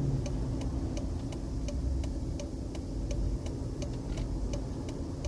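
Turn-signal flasher ticking steadily, about two to three clicks a second, over the low hum of an idling V8 engine.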